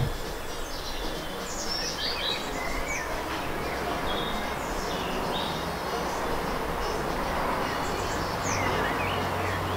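Several birds chirping and singing in short calls over a steady outdoor background noise, with a low hum coming in near the end.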